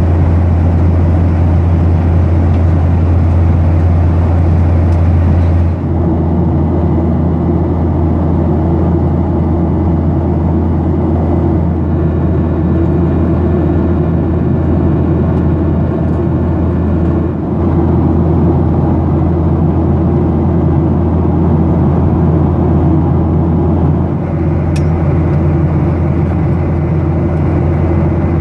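Steady cabin drone of a Boeing 737-800 in cruise, the noise of its CFM56 engines and the airflow over the fuselage, with a strong low hum. It dips briefly three times.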